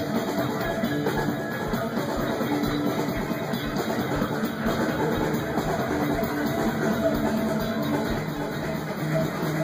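Rock music with electric guitar and a drum kit, driven by a steady kick-drum beat.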